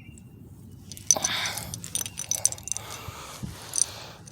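A flurry of close clicking and rustling with light jingling, starting about a second in.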